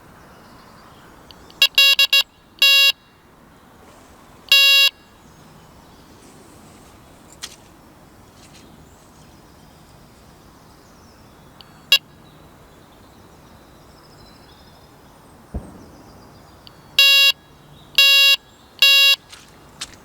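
Electronic carp bite alarm beeping in irregular short bursts: a few single beeps in the first seconds, then a quicker run of longer beeps near the end. Its beeps are the sign of line moving over the alarm's sensor.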